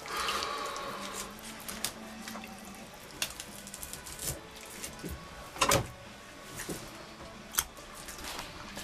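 Raw fish fillets being handled in a pot of water: wet sloshing and squishing with scattered small clicks, and one louder knock a little before six seconds in.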